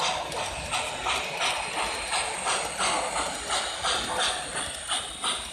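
O-gauge model train rolling past close by, its wheels clicking over the track joints in a steady rhythm of about three clicks a second.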